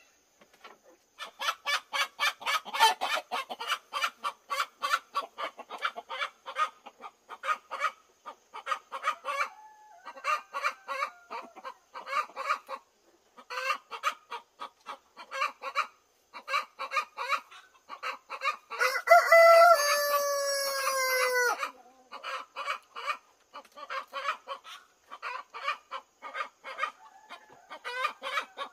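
Chickens clucking in rapid runs, broken by short pauses. A rooster crows once about two-thirds of the way through, one long call that drops in pitch at its end, and the clucking then carries on.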